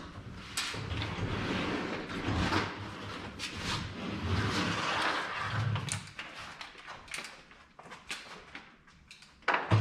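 A folding solar panel being lifted and turned around on a plastic folding table: rustling and scraping with scattered knocks from the frame, and one sharper, louder knock near the end.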